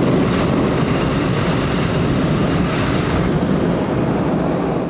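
Hot air balloon's propane burner firing in one steady roar that cuts off abruptly near the end.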